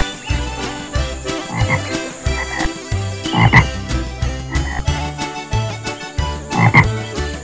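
Frog croaks repeating in a steady low rhythm, with louder calls about halfway through and again near the end.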